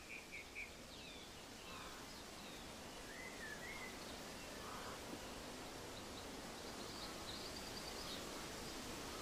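Outdoor ambience: a steady hiss of background noise with scattered bird chirps. There is a quick run of four chirps at the start, a few gliding whistled calls in the middle, and a short warbling trill near the end.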